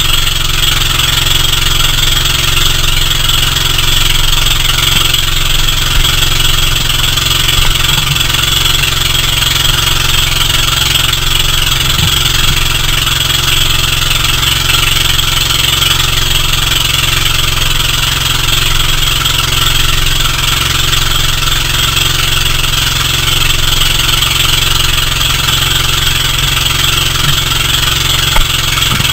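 Engine of a motorized outrigger boat (bangka) running steadily while under way, with no change in speed.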